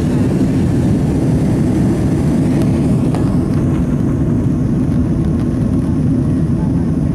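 Steady cabin roar of a Boeing 767-300 climbing after takeoff, heard from a window seat over the wing: engine and airflow noise with a steady low hum. The higher hiss dims slightly about three seconds in.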